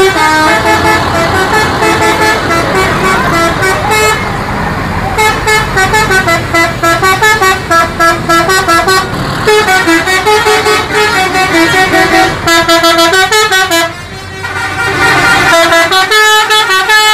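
Indonesian tour bus's multi-tone musical horn (a 'telolet' horn) playing a tune of quick stepped notes, loud and sustained, with brief breaks a few seconds in and toward the end.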